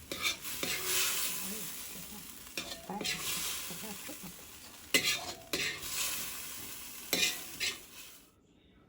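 Eggplant, tomato and pork frying in a pan: a sizzle that swells with each stir, with pairs of spatula knocks and scrapes against the pan every couple of seconds. The sizzle cuts off abruptly near the end.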